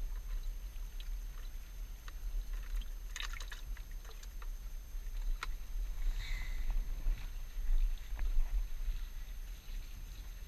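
Wind rumbling on the microphone, with scattered small clicks and rustles from hands handling a plastic bait bucket and fishing tackle.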